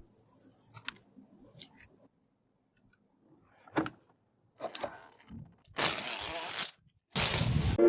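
Scattered light clicks and knocks of computer parts being handled and fitted, then two loud bursts of hiss, each under a second long, near the end.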